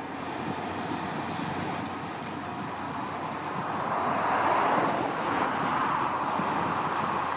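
Tractor engine running steadily under load while pulling a plough, growing louder about four seconds in.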